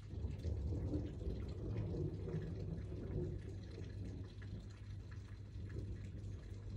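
A low roll of thunder that starts at once, is loudest over the first three seconds and then fades, over steady rain with dripping.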